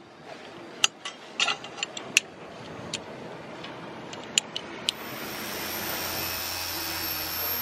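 Sharp metallic clinks and taps of hand tools and chainplate hardware being handled, a dozen or so irregular strikes. About five seconds in a steady machine hum with a high whine takes over.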